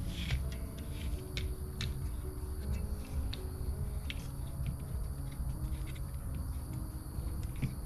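Light clicks and taps of small metal parts and hand tools as a vintage Tekonsha hydraulic trailer brake controller is taken apart, a dozen or so scattered ticks over a steady low hum.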